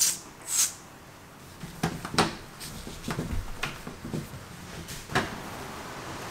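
A metal lever door handle clicking and knocking as it is wiped with a cloth: a string of sharp clicks over a few seconds, with one louder knock near the end. Two short hisses come at the very start.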